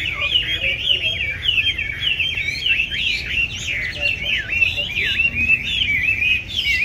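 Chinese hwamei singing a continuous, rapid, varied song of whistled notes that sweep up and down.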